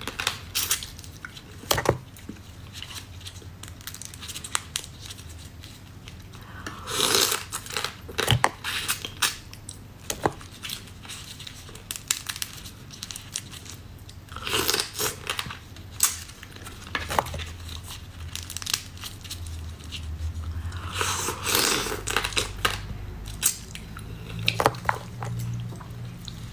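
Close-up eating sounds of crab: chewing, sucking and crunching on shell-on crab pieces, with crackles and sharp clicks as the shell is bitten and pulled apart, coming in a few bursts separated by quieter chewing.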